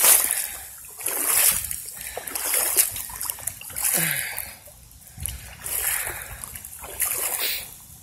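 Boots wading through shallow flowing water, a splash with each step, about one a second, over a steady trickle of moving water.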